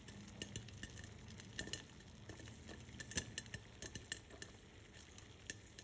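Popcorn kernels popping as they cook: faint, sharp, irregular pops, sometimes several a second, over a low steady hum.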